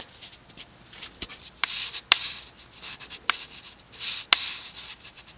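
Handling noise: several light clicks and short scratchy rustles, with the longest rustles about two seconds in and again about four seconds in.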